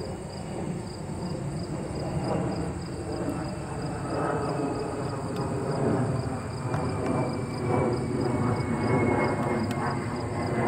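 Outdoor ambience: insects chirping steadily. Under them, a low rumble swells, and a faint tone slowly falls in pitch.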